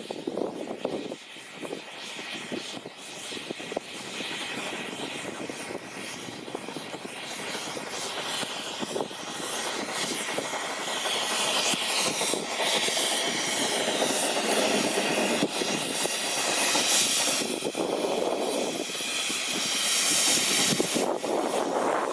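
Steam rotary snowplow Xrotd 9213, built by SLM in 1910, working through deep snow, its steam cylinders driving the spinning wheel that throws the snow aside. The steady rushing, hissing din grows louder as it approaches. Gusts of wind buffet the microphone in the first second or so.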